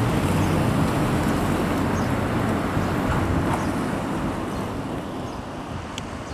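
Steady road and engine noise of a car driving, easing off slightly over the seconds, with a single short click near the end.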